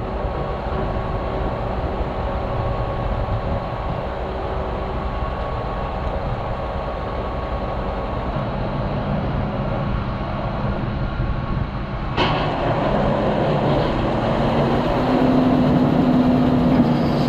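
Farm vehicle engine running steadily. About twelve seconds in the sound changes suddenly to louder, rougher running, with a steady hum added shortly after.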